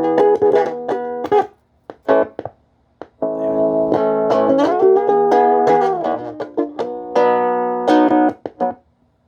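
Amplified guitar playing held chords with a pitch bend. The sound cuts out abruptly to silence a few times and comes back: dropouts that the player puts down to a short in the guitar or its cable.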